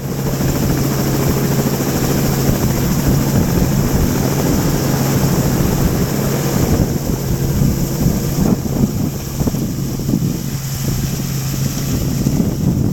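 Robinson R44 helicopter's rotor and engine running as it lifts off and hovers low, heard from a camera under the fuselage, with a steady hum under the rotor noise. Wind buffets the microphone, growing more gusty from about halfway.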